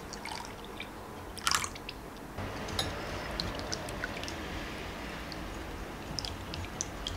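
Milk and cream poured into egg yolks in a glass bowl, with a sharp clink about one and a half seconds in. Then, from about two and a half seconds in, a wire whisk beats the egg tart filling in the glass bowl: a steady swishing with light ticks of wire against glass.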